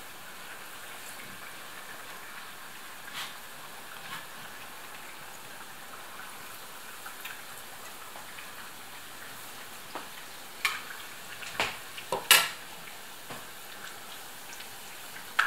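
Curd-cheese dough rings deep-frying in hot oil, a steady sizzle. A little after ten seconds in come a few sharp knocks and clicks, the loudest about twelve seconds in.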